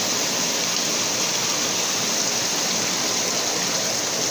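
Flowing river water rushing steadily, a constant even hiss with no breaks.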